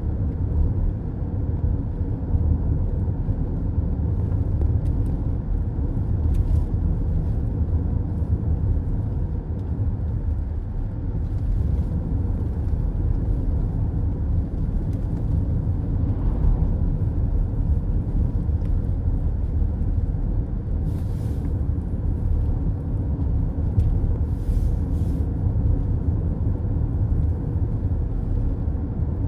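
Road noise inside a car cruising on a highway: a steady low rumble of tyres and engine, with a couple of brief hissing swells in the second half.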